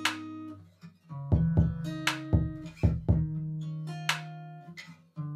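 Background music: a plucked guitar part over a beat with deep bass hits and sharp drum strokes.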